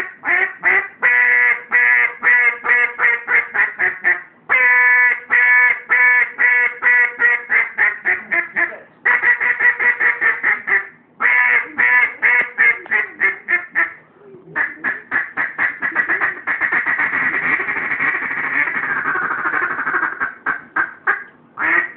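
Custom hybrid single-reed duck call, half acrylic and half cocobolo, blown in loud runs of quacks with brief pauses between them. In the later part the quacks run together into a fast, continuous chatter.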